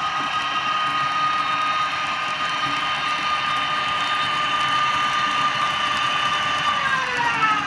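Model electric locomotive in SBB Cargo livery, a steady high whine with several higher tones alongside, over the rumble of wagons rolling on the track. The whine falls in pitch over the last second as the locomotive slows.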